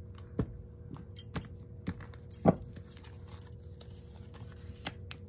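Tarot cards being cut into piles and gathered on a cloth-covered table: scattered soft taps and clicks, with a louder knock about two and a half seconds in, and bracelets jangling on the wrists.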